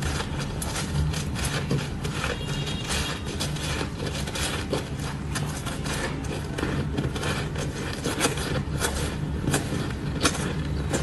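Close-miked crunching of a mouthful of soft shaved ice being bitten and chewed: a rapid, irregular run of crisp crunches over a low steady hum.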